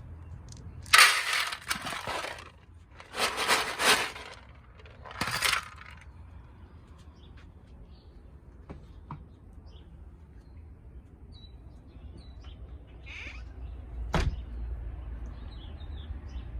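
Dry cat food rattling in a cup, shaken in three short bursts to call cats. A single sharp knock comes later.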